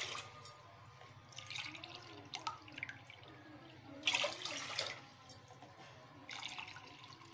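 Water being poured: a mug emptied into an aluminium pot and refilled from a plastic jug, in three short splashing pours about two seconds apart.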